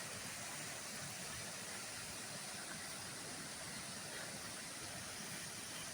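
Faint, steady rushing of running water from a nearby waterfall, an even hiss with no breaks.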